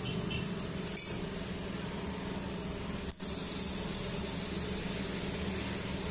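Steady low machine hum; about three seconds in, the TIG arc strikes on the stainless steel pipe joint and a steady high-pitched whine of the running arc sits over the hum.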